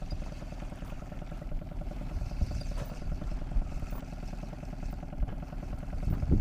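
Outboard motor running steadily, pushing a small inflatable boat, with a low rumble and a steady hum.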